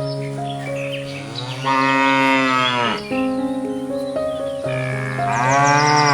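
A cow mooing twice, each moo a long call that drops in pitch at its end, over background music with steady held notes.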